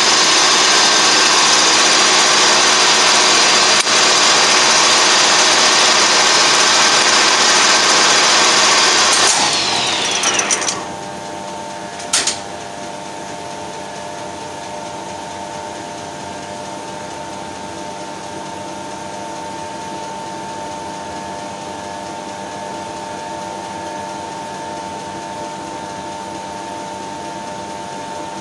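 Colchester Triumph 2000 lathe running with its spindle turning: a loud, steady machine noise with a whine. About nine seconds in the spindle is stopped: the whine falls in pitch as it runs down and the noise drops away. A brief clunk comes a second or so later, and then a quieter steady hum with a steady tone.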